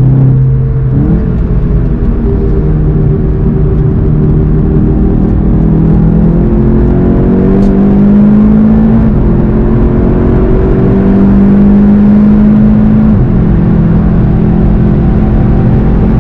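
VW Golf GTI TCR's turbocharged four-cylinder engine pulling hard under full acceleration, heard from inside the cabin. The note climbs steadily and drops at upshifts about a second in and again near the end, over road and wind noise.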